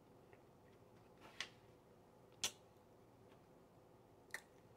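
Near silence broken by three faint, sharp clicks of eating with a metal fork and mouth, the middle one the loudest.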